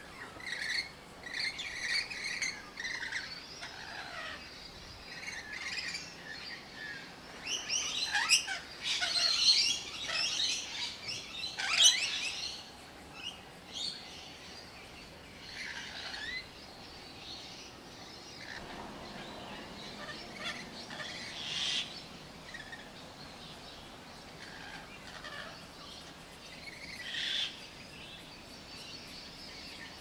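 Rainbow lorikeets calling in short bursts, with scattered calls throughout. The calls are busiest and loudest from about eight to twelve seconds in.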